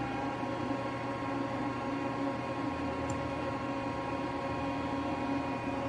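Steady machine hum from a powered-up Miyano BNC-34T CNC lathe standing idle, a constant drone with a few steady tones over a background hiss.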